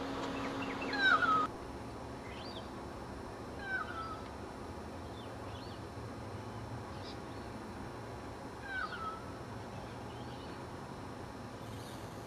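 An animal calling outdoors: a short falling meow-like call repeated four times, a few seconds apart, with faint higher chirps between. A steady background hum stops suddenly about a second and a half in.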